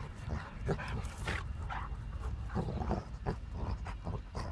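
A basset hound and a boxer play-fighting, with a string of short, irregular dog vocalizations, one louder and sharper about a second in.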